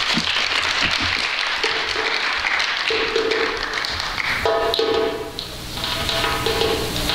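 Audience applauding at the end of a reading. About halfway through, music starts with steady held notes and carries on as the clapping dies away.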